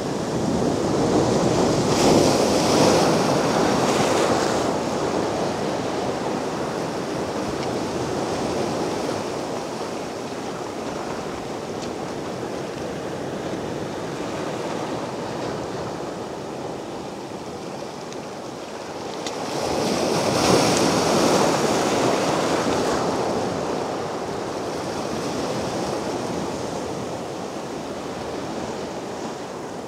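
Mediterranean sea waves breaking on a beach: a louder wave crashes and washes in about two seconds in and again about twenty seconds in, with a softer steady surf wash between.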